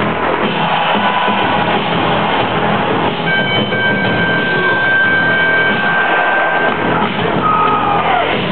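Loud rock music playing, dense and steady, with a held high note from about three seconds in.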